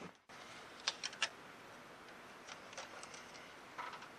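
A few faint, sharp clicks of hand tools and metal parts being handled at the air-conditioning line: three quick ones about a second in and a few softer ones later, over a low hiss.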